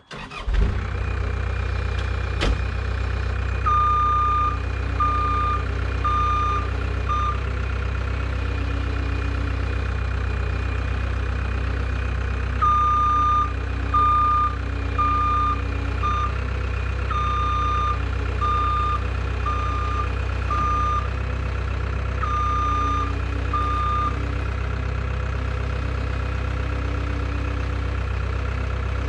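Caterpillar skid steer loader's diesel engine running steadily as it inches back and forth. Its backup alarm beeps in short runs of a few beeps, about one a second, each time it reverses.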